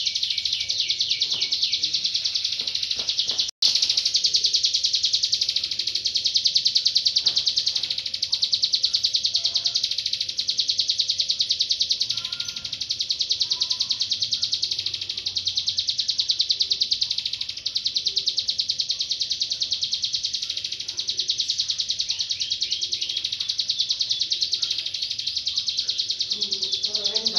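Ciblek gunung (hill prinia) singing a very fast, unbroken, high-pitched chattering trill, with a momentary dropout about three and a half seconds in.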